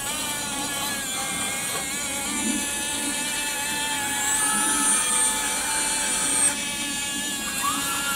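Small electric gearmotors of an RC-converted toy excavator whining as the turntable swings the body round and the lead-screw linear actuators move the arm and bucket. The pitch shifts as the motors speed up and slow down, with a rising whine near the end.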